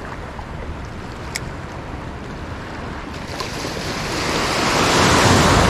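Rushing wind and surf noise, swelling louder over the second half, with one faint click about a second and a half in.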